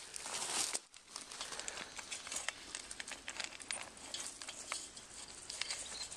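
Puppy eating dry kibble from a stainless steel bowl: a run of irregular small crunches and clicks.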